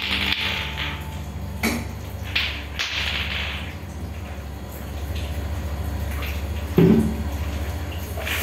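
Plastic balls of a lato-lato clacker toy knocking on a tiled floor as a kitten bats at them: a few scattered knocks, the heaviest a thud about seven seconds in, over a steady low hum.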